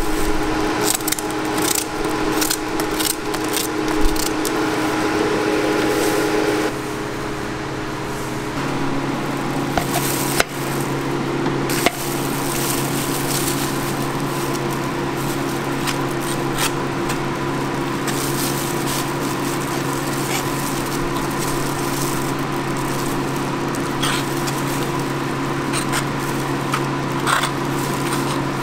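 Steady hum of kitchen machinery, with occasional sharp clicks and knocks of utensils and the scrape of a metal spatula spreading whipped cream on a waffle. The hum changes tone about eight seconds in.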